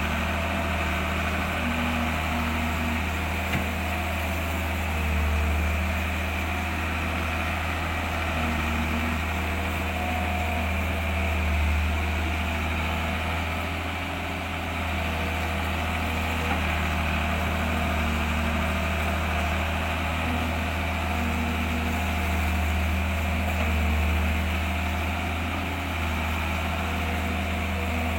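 An engine running steadily at idle: a continuous low hum that swells and eases slowly every few seconds.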